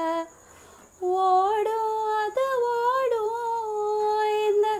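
A woman singing a slow Tamil film song unaccompanied, with long held, wavering notes, starting about a second in.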